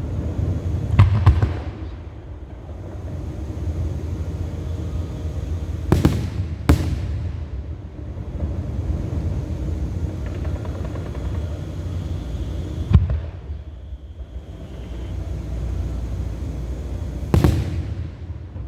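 Fireworks show: aerial shells bursting with sharp bangs about a second in, twice around six seconds, once near thirteen seconds and again near seventeen and a half, over a steady low rumble of further bursts.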